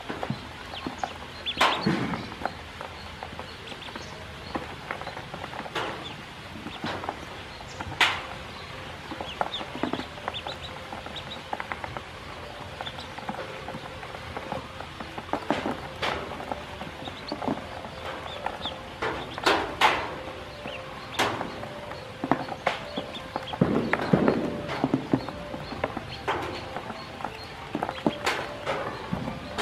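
A group of yellow ducklings peeping, with scattered short knocks and taps as they jostle in a plastic basin.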